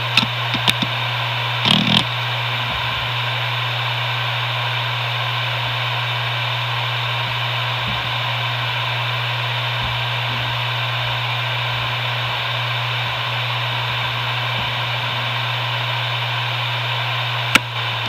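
Maxtor MaXLine Plus II 250GB 7200 rpm hard drive spinning at full speed, a drive rated in perfect health: a steady low hum with an even air hiss over it. A few sharp clicks come in the first two seconds and one more near the end.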